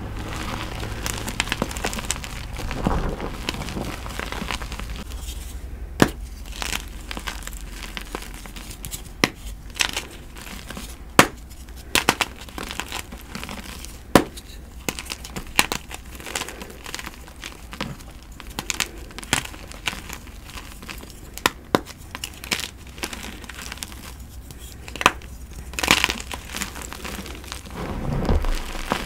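Blocks of gym chalk being crunched. Sharp, irregular snaps and cracks, a few every couple of seconds, ride over a steady crumbly crackle.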